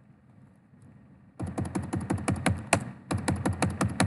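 Computer keyboard typing in two quick runs of keystrokes, each ending with a sharper keystroke: a password typed at a prompt and then retyped.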